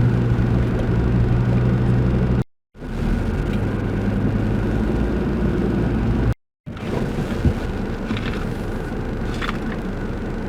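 Four-wheel-drive vehicle's engine running steadily while driving along a bush track, with a single knock about seven and a half seconds in. The sound drops out twice, very briefly.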